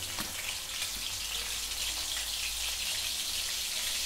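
Chopped green chillies and cumin seeds sizzling in hot oil in a kadhai: a steady, fine crackling frying sound.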